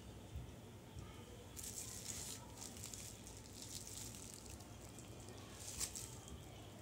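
Faint rustling and brushing as wired in-ear earbuds are pushed into the ears and their cable rubs against a shirt, loudest about two seconds in and again briefly near the end, over low room hiss.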